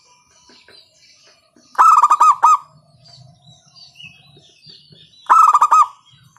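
Zebra dove (perkutut) calling loudly: two quick phrases of about six rapid cooing notes each, the first about two seconds in and the second near the end.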